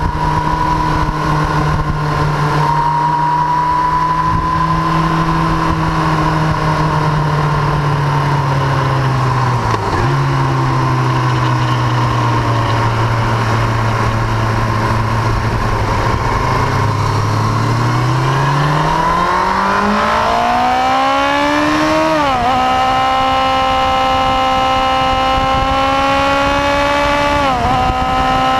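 1999 Yamaha YZF-R1 inline-four engine at race pace: the revs fall as the bike slows for a corner and stay low for several seconds, then climb steeply under hard acceleration, with two quick upshifts near the end.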